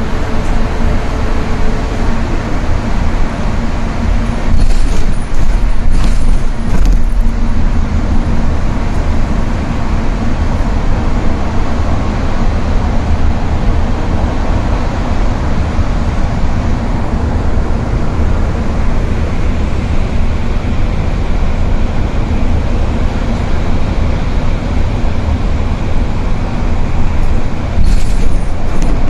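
Steady low rumble of tyre and engine noise heard from inside a vehicle's cabin at highway speed, with a few brief clicks about five to seven seconds in and again near the end.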